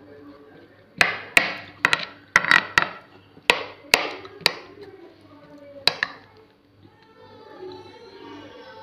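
Metal spoon clinking and scraping against a plate while scooping fruit chaat: about a dozen sharp clinks, irregular, between about one and six seconds in.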